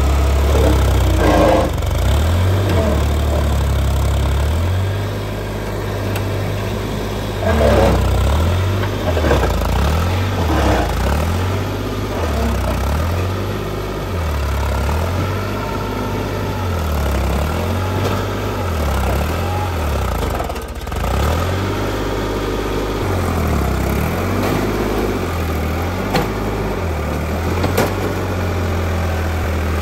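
Heavy diesel engine running, its speed rising and falling again and again.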